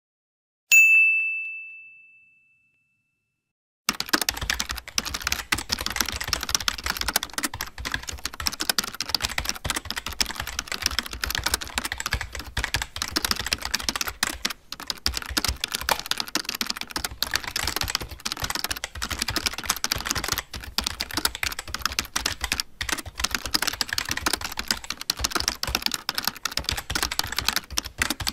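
A single notification-bell ding about a second in, ringing out and fading over a second and a half. After a short silence, continuous rapid typing on a computer keyboard runs on.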